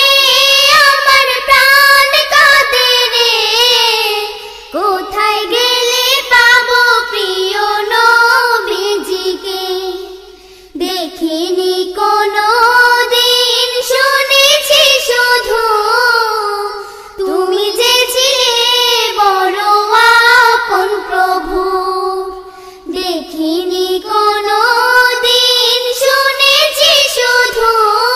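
A single high solo voice singing a Bengali Islamic song in long, ornamented phrases, the pitch wavering and turning within each phrase, with a short break every five or six seconds.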